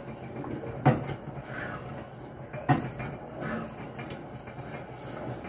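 Metal ladle stirring soup in a stainless steel pot, knocking against the pot twice about two seconds apart, over a steady low hum.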